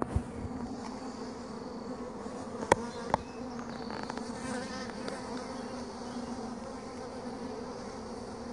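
A large honeybee colony humming steadily over the open frames of the hive, a constant drone close to the microphone. Two sharp clicks come just under three seconds in and about half a second later.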